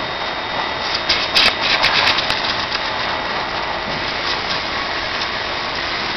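Quiky 10 100 high-pressure washer spraying a jet of water onto the metal body of a backhoe loader: a steady hiss with a faint thin whine. A sharper, crackly spatter comes between about one and two and a half seconds in.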